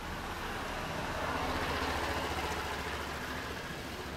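A motor vehicle passing by: a rushing engine and road sound that swells to a peak about halfway through and then fades, over a steady low hum.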